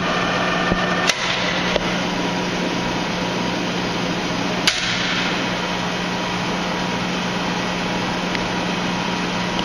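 Clausing Colchester 15-inch lathe running with a steady hum while its chuck is braked to a stop with the foot brake, which disengages the clutch. There is a sharp clack about a second in and another about halfway through.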